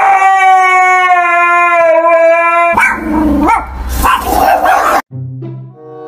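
A husky howling: one long, drawn-out call held on a steady pitch, stopping about three seconds in. It is followed by a couple of seconds of louder, rougher dog noise, then quieter steady tones like music near the end.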